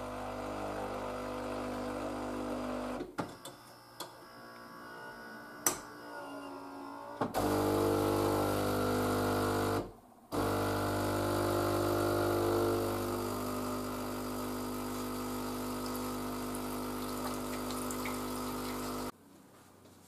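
Philips Series 1200 automatic coffee machine's pump humming as it flushes water through into a glass on a second rinse run. It runs in stretches with a pause about 3 s in and a brief break around 10 s, then cuts off just before the end.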